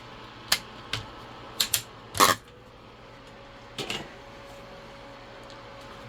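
Handling clicks and knocks of plastic parts as a piece is worked loose from a socket fan: a handful of sharp clicks, the loudest about two seconds in, over a faint steady hum. A thin steady tone comes in after the loudest knock.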